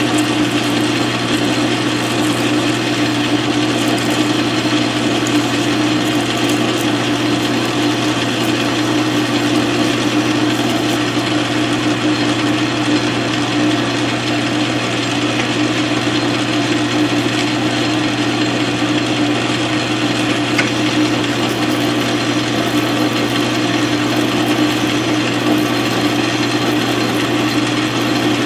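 South Bend 13-inch lathe running steadily while a twist drill in the tailstock chuck is fed into the metal part turning in the four-jaw chuck, drilling it out.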